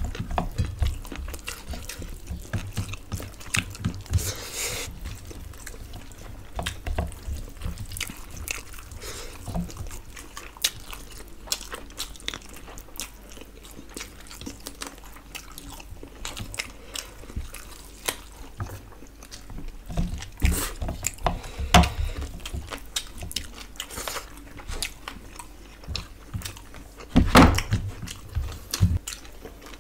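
Close-up chewing and biting of chicken fried rice and noodles eaten by hand, with wet mouth clicks and smacks and fingers working food on the plates. Scattered low thumps run through it, the loudest near the end.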